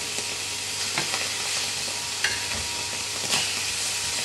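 Slices of lamb's liver sizzling steadily in a very hot pan of browned butter, with a few light clicks of metal tongs as more pieces are laid in.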